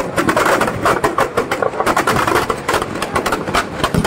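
Firecrackers packed inside a burning Ravana effigy going off in a rapid, continuous crackle of many sharp bangs.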